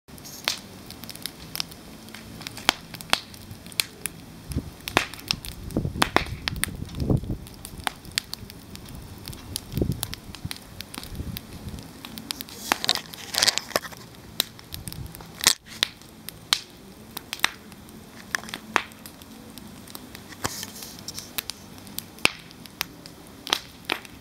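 Wood fire crackling, with irregular sharp snaps over a low steady hiss and a few duller low swells.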